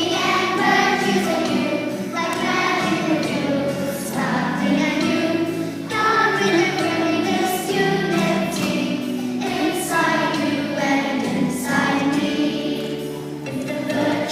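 A group of young children singing a song together in chorus, phrase after phrase, over a steady instrumental accompaniment.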